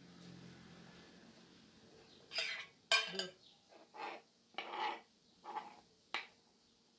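Chopped vegetables being tipped into a mixing bowl: a run of short rustling clatters, with a sharp clink about three seconds in and another near the end.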